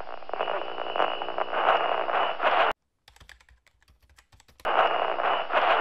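Rapid clattering like keyboard typing, a sound effect laid over a caption being typed out. It cuts out almost entirely a little under three seconds in, leaving only faint clicks, and comes back about two seconds later.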